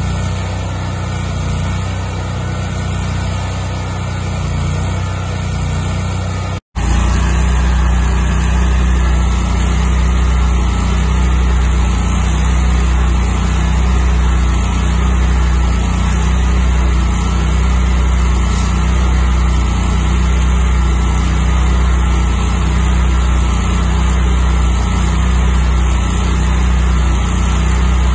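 Lincoln engine-driven welder's engine running steadily under welding load, with the hiss and crackle of the welding arc over it. The sound drops out for an instant about seven seconds in, then carries on with a louder, deeper hum that pulses slightly.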